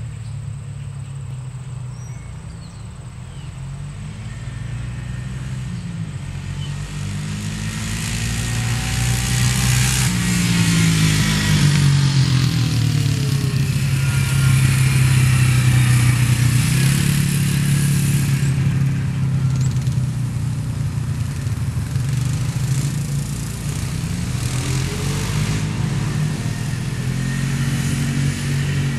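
Quad (ATV) engine running as it is ridden, its pitch rising and falling with the throttle. It grows louder over the first ten seconds or so, stays loud for several seconds, then eases off a little.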